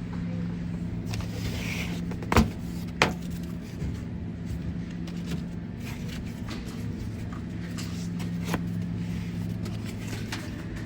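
A steady low hum with two sharp knocks in quick succession and a few fainter clicks.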